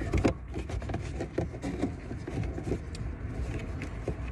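Car trunk trim liner being pushed back into place by hand: a few knocks near the start, then light rubbing and faint clicks over a low steady rumble.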